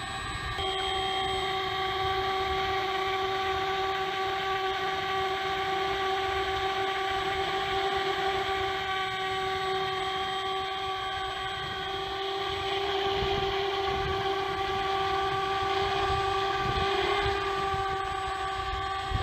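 FMS Pilatus PC-21 1100mm RC model's stock electric motor and five-blade propeller running, a steady high whine with a turboprop-like tone. The pitch steps up slightly about half a second in, and the sound grows louder for a while near the end, over a low rumble.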